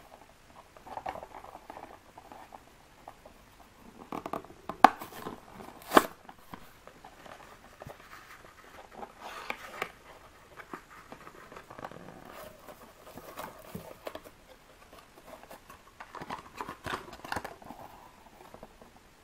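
A small cardboard box being torn open by hand: cardboard tearing and rustling, with two sharp snaps about five and six seconds in. Later there is uneven crinkling and handling as the foil-wrapped chocolate eggs are taken out.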